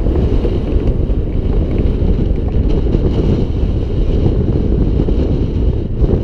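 Skateboard wheels rolling fast over concrete with wind buffeting the camera's microphone: a loud, steady rumble.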